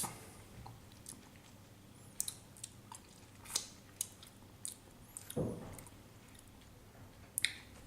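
A person tasting chili paste: faint mouth sounds of chewing and lip clicks, with a brief low hum about five and a half seconds in.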